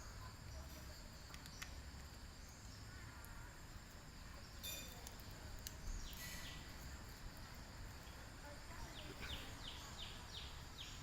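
Faint outdoor background noise with a few soft clicks, and a quick run of about six short falling chirps near the end.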